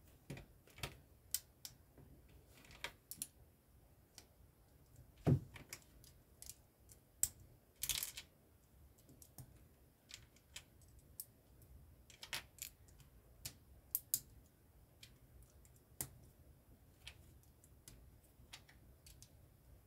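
Plastic LEGO pieces clicking and tapping as they are picked up from the baseplate and pressed together: irregular sharp clicks, with a louder knock about five seconds in and a short cluster of clicks near eight seconds.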